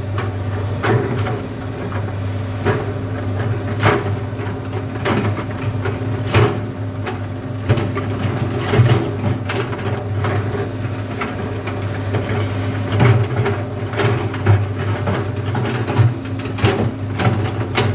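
Komatsu PC200 excavator's diesel engine running steadily under load, with frequent irregular clanks and knocks of gravel and metal as the bucket digs.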